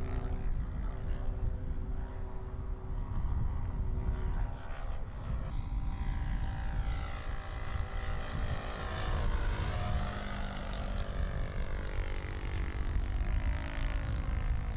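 Propeller engine of a large radio-controlled model airplane droning in flight. It grows nearer and brighter in the middle, and its pitch bends down as the plane passes close about two-thirds of the way in. A steady low rumble runs underneath.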